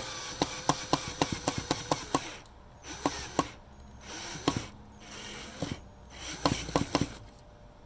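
Screws being driven into wood with a power driver: a regular run of sharp clicks, about four a second, then short bursts of the driver running, with more clicks between them.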